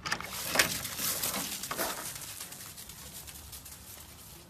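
Footsteps crunching on loose gravel, a few quick steps about half a second apart that fade after the first couple of seconds.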